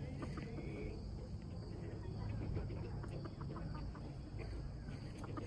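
Backyard ambience: a steady high drone of insects, with a short high chirp about half a second in and a few faint ticks over a low rumble.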